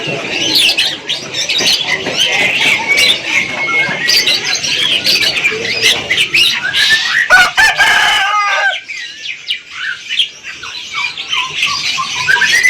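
Many caged birds chirping and calling together, dense and high-pitched, with a longer, lower call standing out around seven to eight seconds in. After that the chirping thins out to a few scattered calls.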